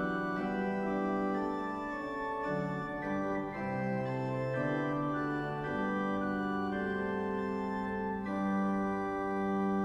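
Organ music: slow, sustained chords, each held for a second or more before moving to the next.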